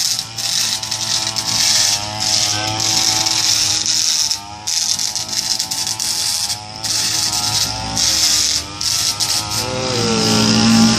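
A brush cutter's small engine runs with its pitch wavering, while the metal blade grinds and scrapes along concrete paving, throwing sparks. The harsh scraping hiss breaks off for a moment several times. Near the end the engine's pitch drops as the blade is lifted off the ground.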